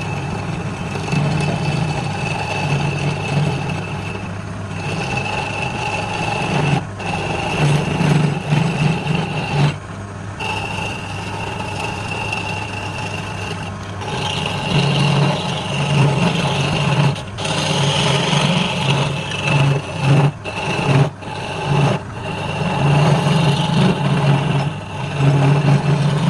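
Electric wood lathe running steadily with a low motor hum and a high whine, as a tool works the spinning wood. The sound breaks off briefly several times.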